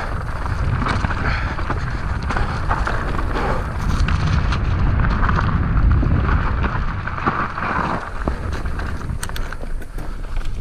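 Ride noise of a mountain bike on a dirt trail: wind buffeting the microphone over the rough hiss of tyres rolling on dirt and dry leaves, with a few sharp rattles or knocks near the end.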